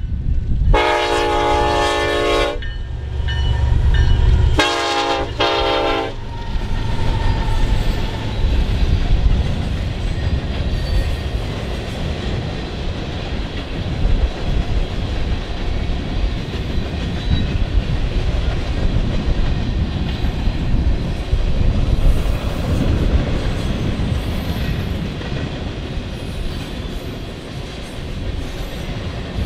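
A passing train's horn sounds two blasts, one about a second in and a shorter one about five seconds in. The train then rolls by with a steady rumble and the clatter of its wheels on the rails.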